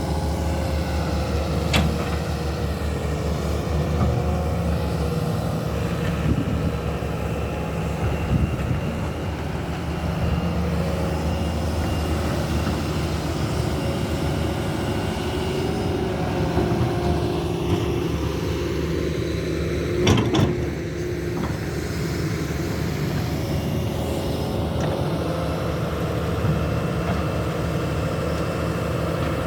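Hydraulic excavator diesel engines running steadily while cutting a slope, with a few sharp knocks, the loudest about twenty seconds in.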